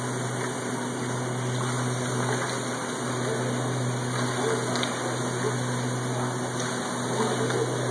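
Water fountain running: a steady rush of water from its arcing jets splashing into the basin, over a steady low hum.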